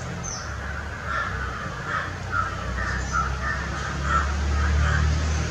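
Crows cawing repeatedly in the background, short harsh calls coming several times a second, over a low rumble that grows louder near the end.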